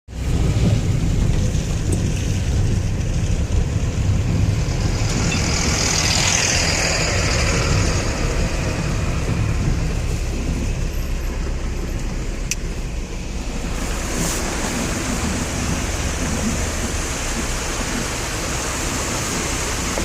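Road vehicle noise with a steady low rumble, and one vehicle passing about five to eight seconds in.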